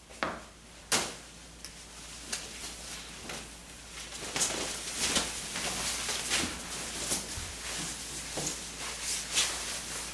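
Handling noises: two sharp knocks about a second apart near the start, then a run of rustles and light knocks as a football jersey is pulled on over clothes.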